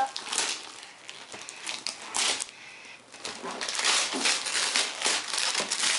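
Wrapping paper being torn and crinkled off a gift box in a series of rips and rustles, with one burst about two seconds in and a busier run through the second half.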